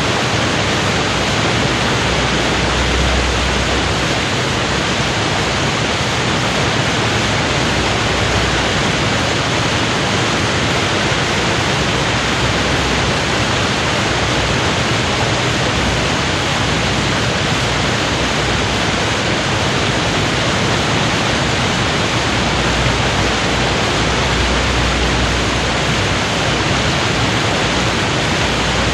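River water pouring over a weir in full flood: a steady, dense rush and roar with a low rumble underneath.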